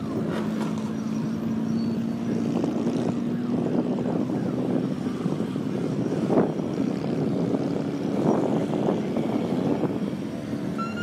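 Engines of a column of motorcycles riding past, running together with a steady hum underneath and a few revs swelling up, the strongest about six seconds in.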